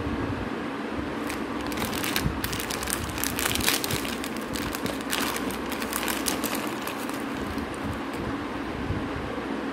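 Clear plastic bag of slate pencils crinkling as it is handled, with a dense run of crackles in the middle, over a steady low background hum.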